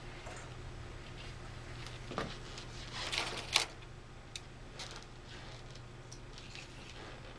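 Handling noise of a thin rod being slid through the rings on the back of a Roman shade: rustling of the shade fabric and a few light taps, with a sharp click about three and a half seconds in. A steady low hum runs underneath.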